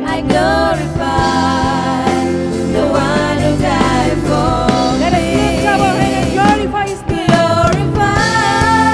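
Christian worship music: a voice singing a melody over a sustained instrumental backing, with a brief dip about seven seconds in.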